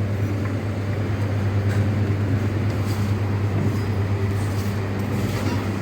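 Steady low mechanical hum with a noisy haze above it, unbroken throughout.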